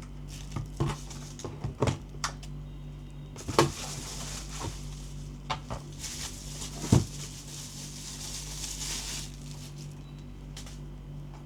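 Gel blaster and its packaging being handled: scattered clicks and knocks, the sharpest about three and a half and seven seconds in, with a stretch of rustling from about three and a half to nine seconds in, over a steady low hum.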